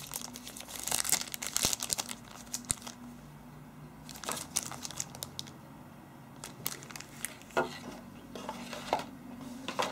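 Thin plastic bag crinkling as a packaged phone battery is handled, in short spells of crackle with quieter pauses between.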